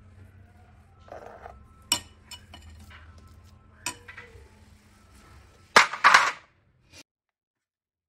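Steel spoon clinking and scraping against a steel pot while soft upma is scooped out and pressed into a silicone mould, with a few sharp clinks. The loudest is a brief clatter about six seconds in.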